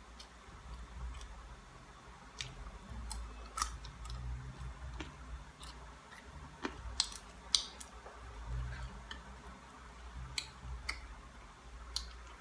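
Scattered sharp clicks and crackles of dried danggit fish being pulled apart by hand and chewed, a dozen or so irregular snaps with short pauses between.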